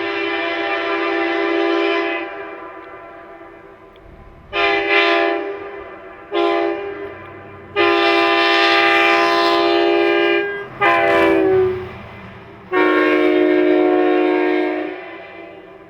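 Locomotive air horns, a Leslie SL-4T and a Nathan P3, blown in a series of loud chord blasts: a long blast already sounding, then two short, a long, a short and a long one near the end, each dying away slowly.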